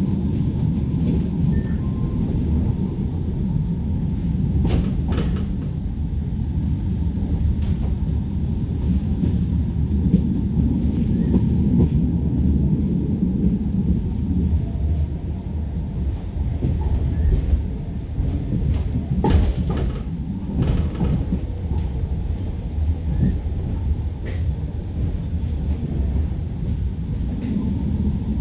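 Bombardier M5000 tram running along the line, heard from inside the passenger car: a steady low rumble of wheels on rails, with a few sharp clicks about five seconds in and again around twenty seconds in.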